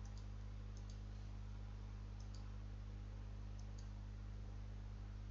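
A few faint computer mouse clicks, some in quick pairs, over a steady low electrical hum.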